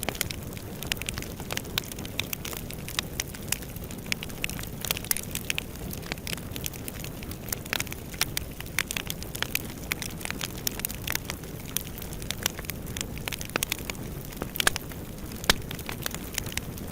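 Wood fire burning in a fireplace: a steady low rumble of flames with frequent, irregular sharp crackles and pops, two of them louder a little before the end.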